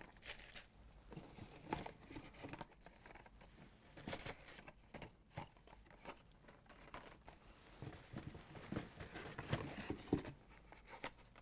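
Faint handling noise of blister-carded die-cast toy cars: cardboard backing cards and clear plastic blisters rustling and clicking irregularly as they are picked up and swapped.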